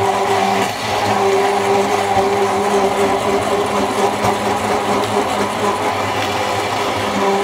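Hand-held immersion blender running at a steady, even speed, puréeing a tomato-based sauce.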